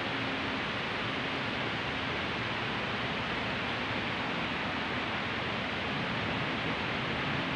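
Steady hiss-like ambient noise inside a large church, with no distinct events and a faint low hum that comes and goes.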